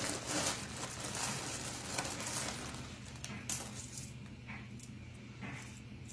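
Pennies dropped one by one into a floating tin foil boat, each landing with a short click on the foil and the coins already in it. The sharpest and loudest click comes about three and a half seconds in, and the drops become fewer and fainter after about four seconds.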